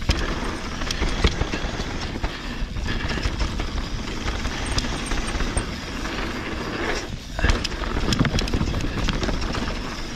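Mountain bike rolling fast down a dirt singletrack: a steady rush of tyre and wind noise, with the bike rattling and clicking over bumps all the way and a heavier knock about seven seconds in.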